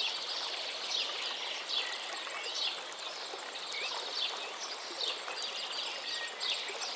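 Birds chirping, short high calls repeating about once a second, over a steady hiss of rain.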